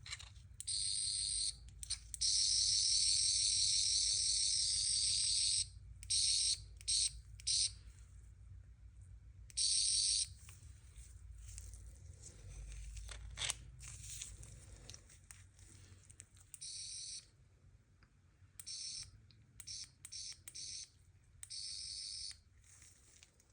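RubberToe Replicas 9th/10th Doctor sonic screwdriver replica playing its electronic sound effect: a high-pitched buzzing whir switched on and off repeatedly. The longest burst lasts about three and a half seconds near the start, followed by a string of shorter ones.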